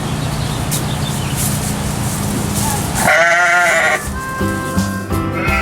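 A sheep bleats once, loudly and with a wavering pitch, about three seconds in, over a steady low hum and rushing background noise. Harmonica music starts about a second later.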